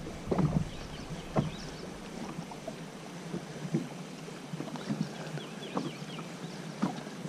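Quiet open-boat ambience: choppy water lapping at a bass boat's hull, with scattered light knocks and a few faint high chirps.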